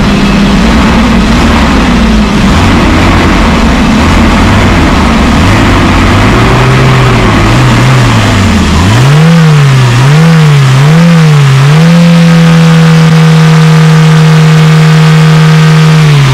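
Toyota Hiace's 2.4-litre four-cylinder petrol engine running just after a fuel filter change, its speed wandering up and down at first, then three quick revs about nine seconds in. It holds at a steady higher speed and drops back near the end.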